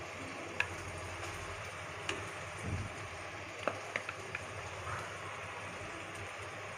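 A few light clicks and taps of a steel spoon against the pot and the rice bowl as cooked rice is spooned over egg masala, with one soft low thump about midway, over a faint steady hiss.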